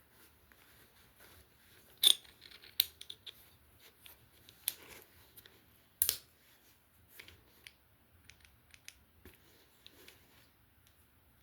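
Sharp metal clicks and small rattles from a DNT QD150 quick-detach scope mount being seated and worked on its rail. The loudest clicks come about two seconds in and about six seconds in. The light rattle comes from the mount's loose filler screws.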